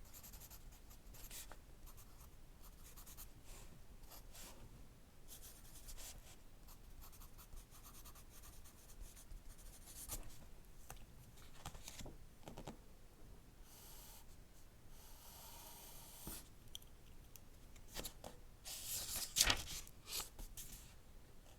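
Quiet close-up ASMR scratching and light clicking, with a longer rustle about two-thirds of the way through and a louder scratchy rustle near the end.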